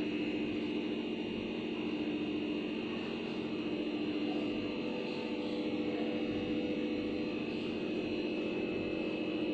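A steady hum with several constant tones, unchanging throughout.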